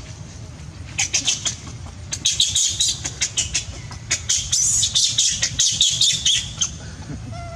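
Young long-tailed macaque screaming: a rapid run of short, shrill, high-pitched cries starting about a second in and stopping shortly before the end.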